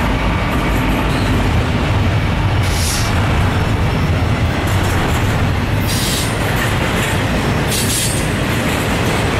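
Double-stack intermodal container train rolling past, with a steady rumble of steel wheels on rail. Three brief high-pitched wheel squeals come about three, six and eight seconds in.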